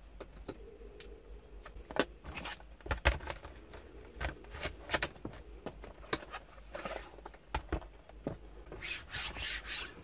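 Plastic Lenovo G510 laptop being handled on a cloth-covered tabletop: scattered knocks and clicks as it is turned over and set down, the loudest knock about three seconds in, then a scraping rub of plastic sliding near the end.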